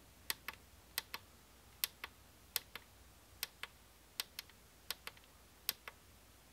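Small plastic reset button on a wireless bridge unit being pressed repeatedly, about eight presses, each a faint double click of press and release, roughly one every three-quarters of a second, as the unit steps through its pairing-letter setting.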